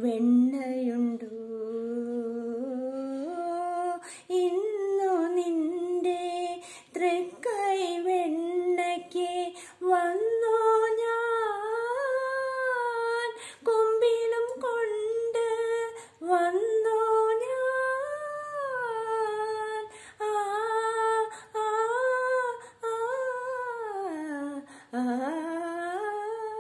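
A woman singing unaccompanied in Malayalam, a slow devotional melody to Krishna of Ambalappuzha. She holds long, wavering notes that glide up and down, with short pauses for breath.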